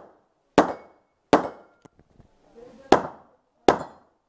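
Semi-automatic pistol shots: four shots in two pairs, the shots in each pair about three-quarters of a second apart, with a pause of about a second and a half between the pairs.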